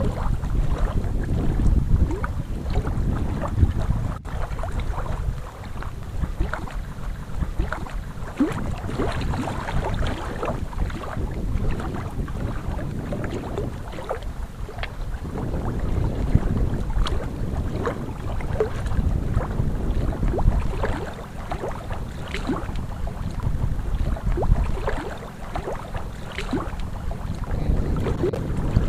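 Wind buffeting the microphone over splashing, lapping water, with many small sharp splashes throughout.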